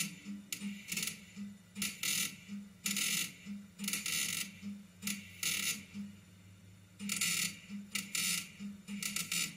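MIG welder tack- and stitch-welding car-body sheet metal: about a dozen short bursts of crackling arc, each under half a second, with a short pause about six seconds in.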